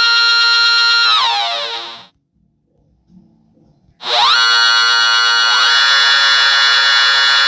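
Buzzy electronic synthesizer tones from a phone synth app. A held tone slides down in pitch and fades out about two seconds in, then after a short silence a new held tone starts and glides up in pitch partway through.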